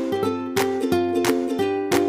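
Music: a plucked-string tune over a steady beat.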